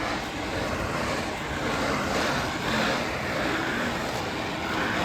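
A car driving past: steady engine and tyre noise.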